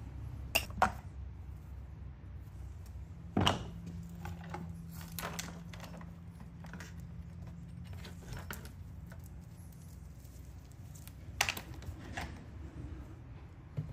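Metal clanks and chain rattling as the clutch cover, guide bar and saw chain are taken off a chainsaw: a few sharp knocks, the loudest about three and a half seconds in, then scattered light rattles of the loose chain, over a low steady hum.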